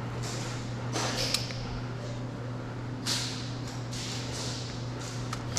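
A few scattered sharp snaps from airsoft fire: a quick cluster about a second in, another about three seconds in, and a faint one near the end. A steady low hum runs underneath.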